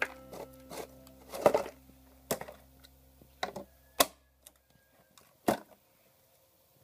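Background music that fades out about four and a half seconds in, with a few sharp clicks and knocks scattered through; the loudest come about one and a half and four seconds in.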